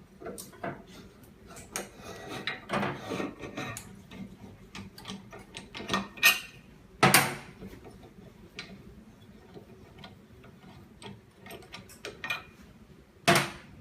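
Scattered clicks and knocks of hands working a de-bubbler machine and handling the phone screen, with a rustling stretch about two to four seconds in and the loudest knocks about six to seven seconds in and again near the end.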